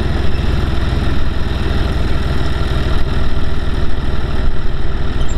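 A John Deere tractor's diesel engine running steadily at idle, a dense low rumble with a fast, even beat of firing pulses.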